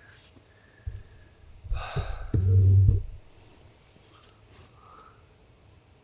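Rustling and bumping handling noises: a knock about a second in, a burst of rustling near two seconds, then a short, loud low rumble lasting under a second, and faint rustles after.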